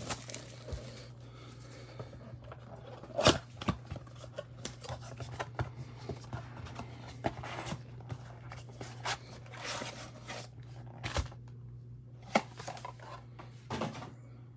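A sealed trading-card blaster box being opened and its packs handled: scattered rustling, crinkling and tearing of wrapper and cardboard, with short clicks, over a steady low hum.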